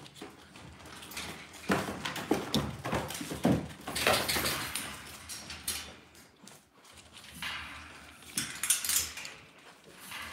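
Dalmatian puppies scrabbling and pawing at a metal wire puppy-pen panel: irregular rattling and clinking of the wire mesh. It comes in two bouts, the first from about two to five seconds in and the second around eight to nine seconds in.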